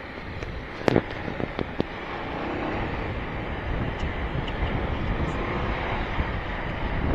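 Wind rushing over the microphone of a motorcycle being ridden downhill, growing louder toward the end, with a few sharp pops or knocks on the mic about a second in.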